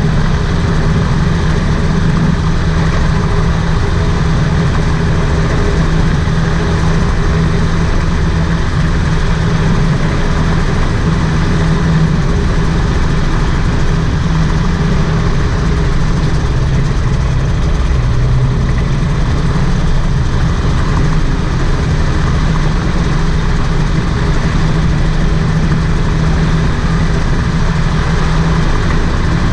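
Rotax 582 two-stroke twin engine of a float-equipped gyroplane running steadily as it taxis on water. Its pitch drops briefly about seventeen seconds in, then rises again.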